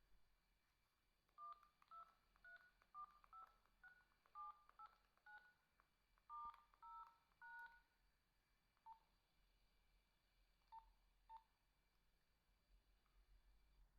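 Nokia 2110i keypad tones: about a dozen short dual-tone beeps in quick succession, each pair different, stepping through the keypad in order like keys 1 to 9, star, 0 and hash. These are followed by a few spaced-out single lower beeps from further key presses.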